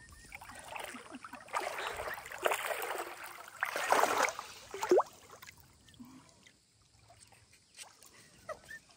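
Water splashing and swishing as a young emu paddles through a shallow pond, loudest in two stretches in the middle, with a sharp splash about five seconds in.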